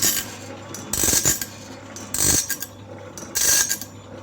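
Band sawmill blade sharpener running: its grinding wheel grinds a tooth about every 1.2 seconds, each grind a short harsh burst, over the steady hum of the motor, as the feed advances the blade tooth by tooth.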